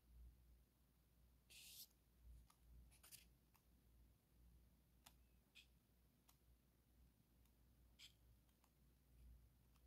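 Faint sounds of a paperback book's pages being turned by hand: one brief papery swish about a second and a half in, then scattered soft clicks of page edges.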